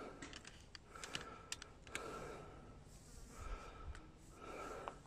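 Faint, scattered light clicks and rustle of a handheld camera being handled and adjusted.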